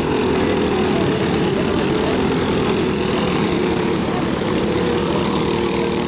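A pack of clone-class racing go-karts at speed, their small single-cylinder four-stroke engines droning together in several overlapping tones.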